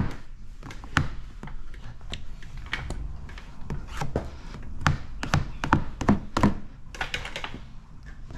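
Irregular light taps and knocks, about a dozen, as a plastic squeegee works wet paint protection film onto a car's front bumper, with a short scrape near the end.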